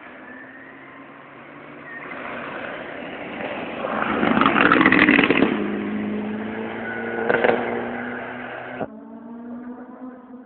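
Rally car approaching at speed and passing close by, engine at high revs, loudest about halfway through and then falling away, with a sharp crack about seven seconds in. The sound cuts off suddenly near the end, leaving a faint steady buzz.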